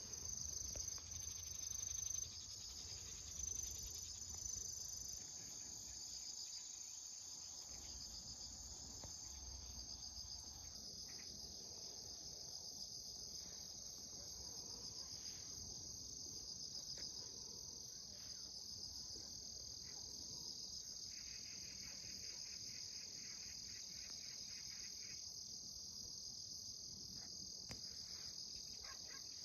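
Chorus of crickets trilling steadily, high-pitched. A second, lower insect trill joins for a few seconds about two-thirds of the way in. There is some low rumbling in the first couple of seconds.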